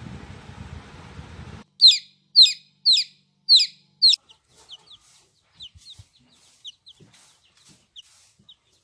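Baby chick peeping: five loud peeps, each falling in pitch, about two a second, then softer falling peeps scattered through the rest. Before the peeps, a low steady hiss cuts off suddenly.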